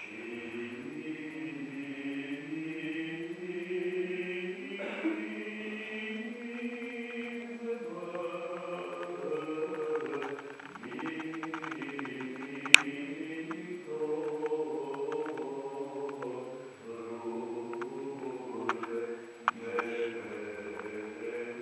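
Orthodox liturgical chant: voices holding long notes that shift from one pitch to the next, with a lower voice sustained underneath. One sharp click, a little past halfway, is the loudest sound.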